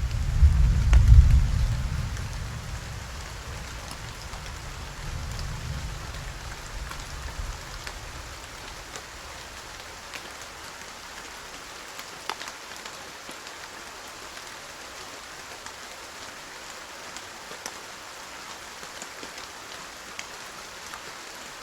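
Steady rain with scattered drop ticks. A deep rumble of thunder is loud at the start and dies away over the first several seconds.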